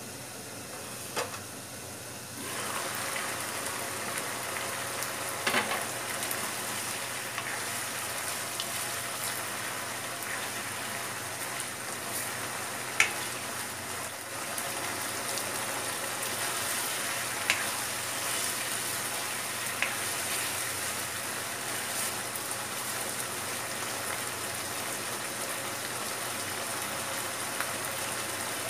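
Pork adobo frying and sizzling in a nonstick wok as its sauce cooks down, stirred with a spatula. It gets louder about two seconds in, with a few sharp taps of the spatula against the pan.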